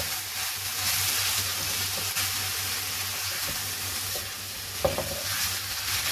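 Vegetables and chicken sizzling in a non-stick wok over high heat while a spatula stirs and scrapes them, with one sharper clack of the spatula against the pan a little before five seconds in.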